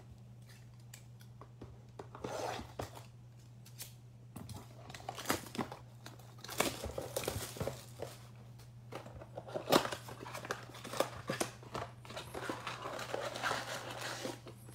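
Clear plastic shrink wrap being torn and crinkled off a cardboard trading-card blaster box, then the box being opened, with scattered sharp snaps of plastic and cardboard.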